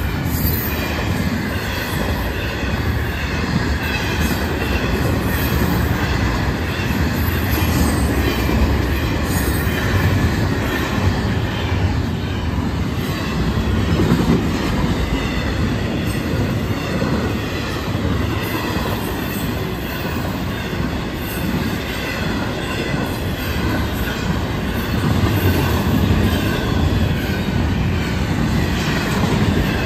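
Freight train's intermodal cars rolling past at speed: a steady, loud rumble of steel wheels on the rails, with faint high tones above it.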